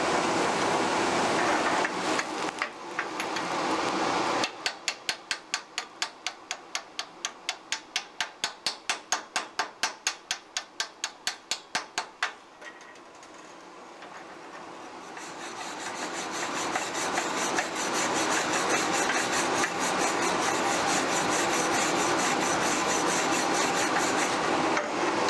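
Stick-welding arc crackling steadily. It is broken by about eight seconds of sharp, even strokes, roughly four a second, as slag and spatter are knocked and brushed off the bead. Then the arc crackles again for a second bead.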